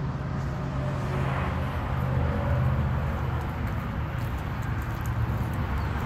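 Steady rumble and hiss of highway traffic passing, with no single vehicle standing out.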